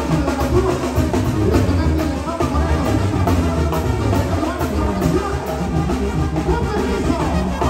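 Live band music led by an accordion, with drums and a strong bass line, played loud through a concert sound system.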